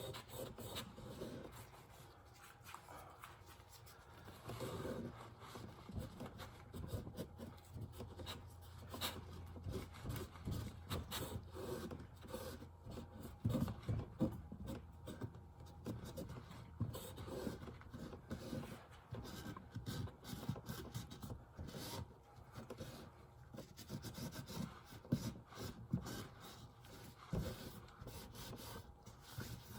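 Irregular rubbing and scraping, broken by scattered short knocks and clicks.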